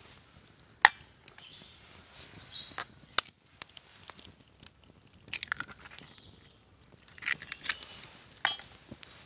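Sharp clicks and pops: a knife tapping an egg shell to crack it over a frying pan on a wood campfire, and the fire crackling.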